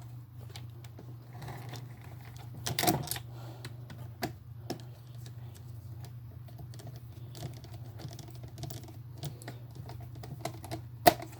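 Irregular light clicks and taps of small plastic parts and a hand screwdriver being handled while fastening the shocks on a toy RC truck, with a sharper click near the end, over a steady low hum.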